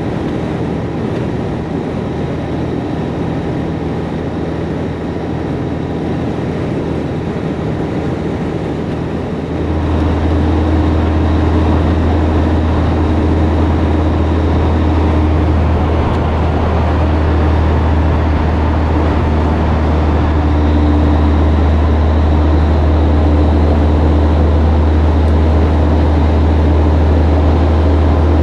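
Peterbilt cabover semi truck's Caterpillar diesel engine running steadily under way, a deep drone with road noise. About ten seconds in the drone suddenly gets louder and heavier in the bass and holds there.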